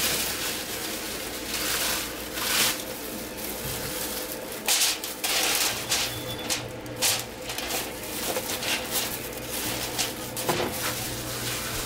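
Aluminium foil crinkling in short, irregular bursts as seasoned catfish fillets are laid on a foil-lined pan by a gloved hand, over a steady low hum.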